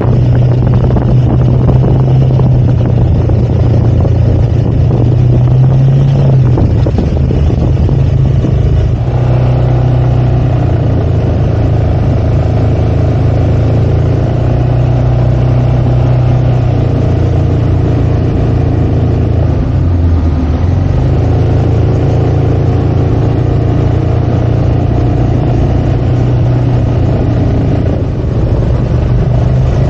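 Yamaha XMAX 300 scooter's single-cylinder engine running at steady road speed while riding, its pitch dipping briefly about twenty seconds in before picking up again.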